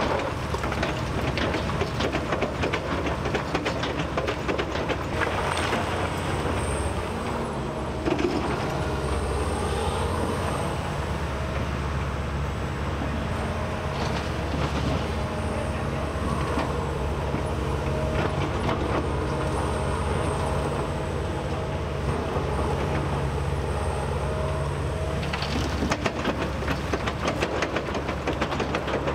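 Kobelco SK260-10 crawler excavator's diesel engine running steadily, with frequent metallic clanks and rattles from the machine working.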